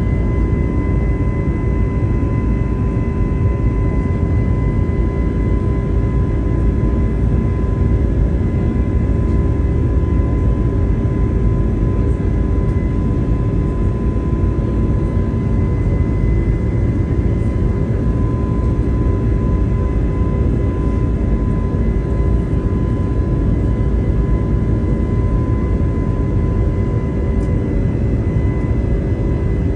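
Airbus A320neo cabin noise: a steady, loud jet-engine and airflow rush with constant whining engine tones, holding level with no change in pitch.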